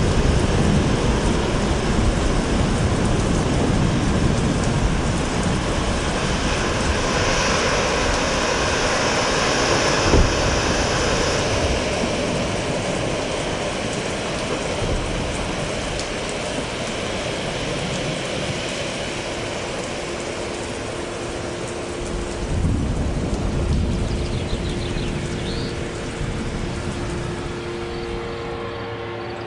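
Steady heavy rain with low rumbles of thunder, slowly fading. A low steady tone joins about two-thirds of the way through, and a few faint bird chirps come in near the end.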